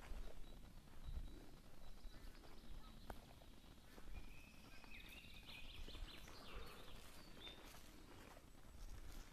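Quiet outdoor ambience with faint high bird calls in the middle stretch and a few soft footsteps on rubble and leaf litter.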